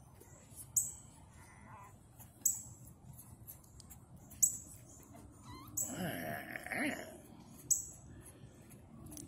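Young pit bull puppy whining once, a wavering cry lasting about a second, six seconds in. A short, high chirp that falls in pitch repeats about every two seconds throughout.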